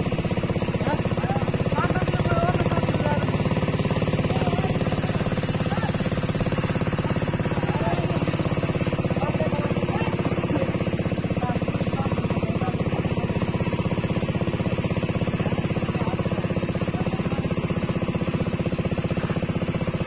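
Small engine running steadily at a constant speed with a fast, even beat, as of a pump engine draining the pond.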